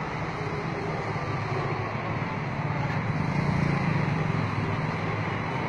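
Steady low motor hum over a haze of street traffic noise, getting a little louder in the middle.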